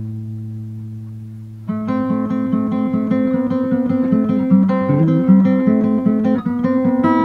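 Background music on acoustic guitar: a held chord rings and fades, then, a little under two seconds in, a quick rhythmic picked-and-strummed guitar part starts and runs on.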